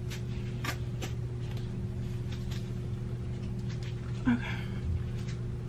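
Steady low hum of room tone in a small room, with a few faint clicks in the first second and a brief murmur of a voice about four seconds in.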